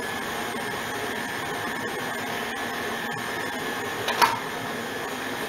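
KitchenAid Classic tilt-head stand mixer motor running steadily while mixing bread dough, with one brief clink about four seconds in.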